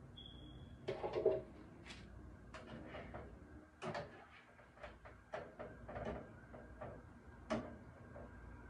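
A spoon clinking and scraping in a saucepan as hot cooked carrot and beetroot pieces are spooned out and dropped into a blender jar: a string of light knocks and taps, the loudest cluster about a second in and another near the end.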